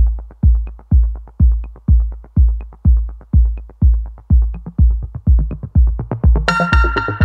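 Electronic background music driven by a heavy kick drum, about two beats a second, with light ticks between the beats. A bright synthesizer part comes in near the end.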